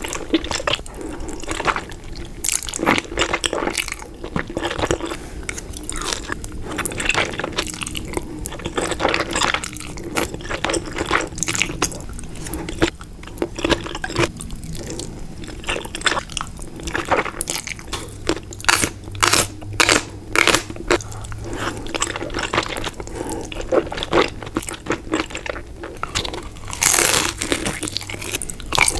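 Close-miked eating sounds: wet slurping and chewing of black bean noodles (jjajangmyeon) and biting into crisp fried dumplings, with many short crunches and clicks throughout.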